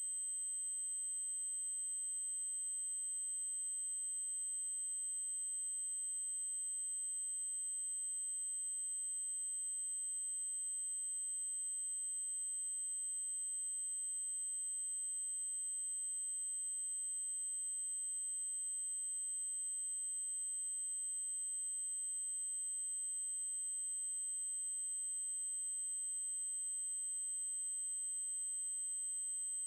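A steady, unbroken synthesized 8192 Hz triangle-wave tone: a single high-pitched electronic whine.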